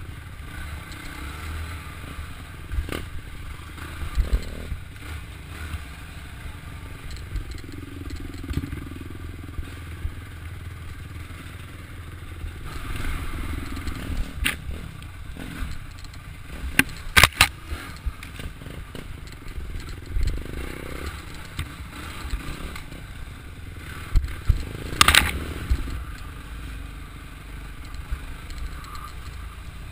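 Off-road dirt bike engine running and changing pitch over a rough dirt trail, heard from a camera mounted on the bike. Sharp knocks and rattles come from the bumps, the loudest about halfway through and again near the end.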